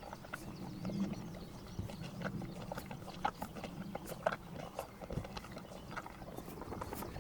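Horses and donkeys licking and working at a salt block: a steady low rasping, broken by many short clicks and knocks.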